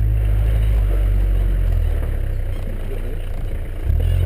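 Four-wheel drive's engine pulling through soft sand, a deep steady rumble. It eases off in the middle and picks up again near the end.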